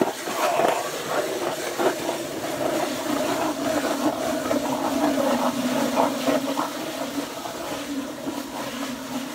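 Ice auger boring a hole through the ice into slush: a steady hum with irregular scraping throughout.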